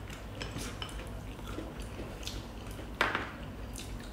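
People eating a meal by spoon and by hand: soft wet chewing and food noises with light clicks of a spoon on a plate, and one louder short sound about three seconds in.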